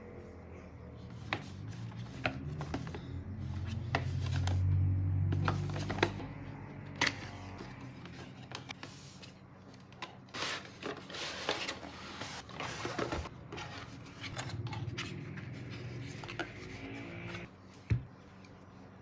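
Perfume box and packaging being handled and opened: rubbing and rustling with a run of sharp clicks and taps.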